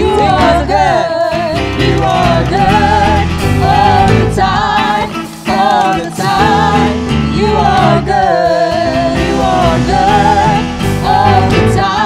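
Praise and worship team singing a Christian worship song with instrumental accompaniment.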